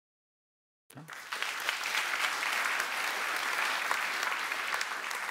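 Audience applauding, starting suddenly about a second in and carrying on steadily.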